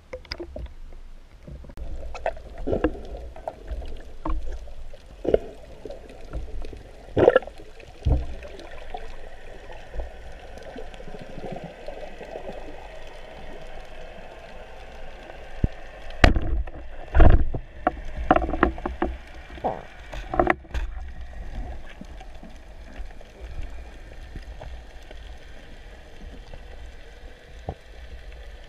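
Water sloshing and gurgling around a camera at the waterline and then underwater, with a steady low rumble and irregular dull knocks and thumps as a spearfisher swims and dives with a speargun; the loudest knocks come in a cluster a little past the middle.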